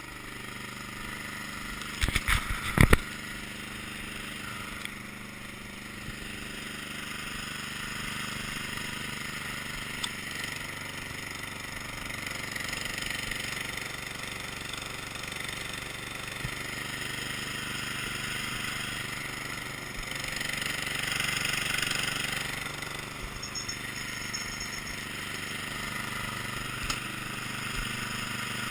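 A Cub Cadet's small engine running steadily, with a few sharp knocks about two to three seconds in.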